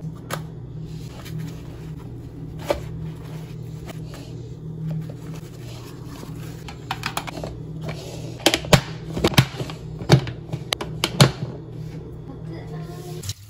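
Background music plays throughout. About two-thirds of the way in come a run of sharp clicks and taps, four of them loudest, from hands handling a plastic food container and its green-rimmed snap-on lid.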